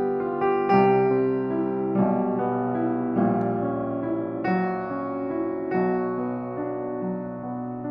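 Danemann piano being played: a slow passage of sustained chords, a new chord struck roughly every second and left to ring, demonstrating the instrument's tone.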